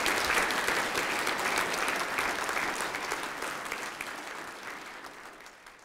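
An audience applauding after a talk. The clapping is strongest at first and fades away over the last couple of seconds.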